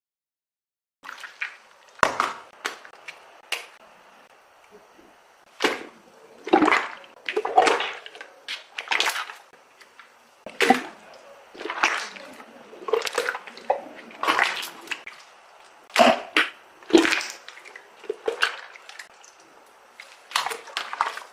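Slime being squished and worked by hand, with short wet squishing sounds about once a second, starting after a second of silence.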